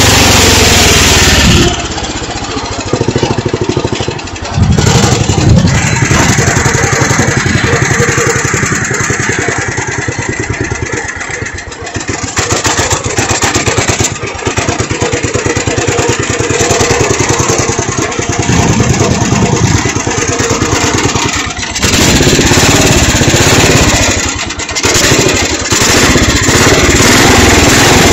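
Small engine of a custom ride-on garden tractor running as it drives along, its speed rising and falling several times. A rush of wind on the microphone at the start.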